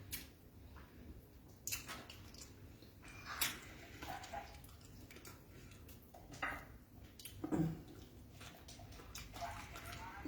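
Wet mouth sounds of someone chewing beans and fried plantain: scattered moist smacks and squelches at an uneven pace.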